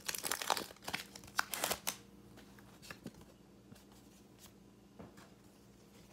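Foil booster-pack wrapper crinkling and tearing as it is pulled open, for about the first two seconds. After that come a few faint clicks and rustles of trading cards being handled.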